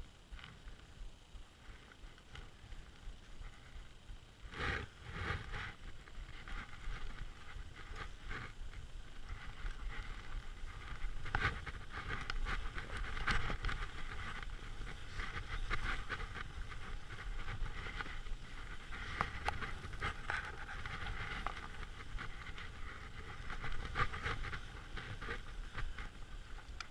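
Skis scraping and hissing over tracked, bumpy snow while skiing downhill, with wind rumbling on the microphone. The scraping grows louder and busier from about five seconds in.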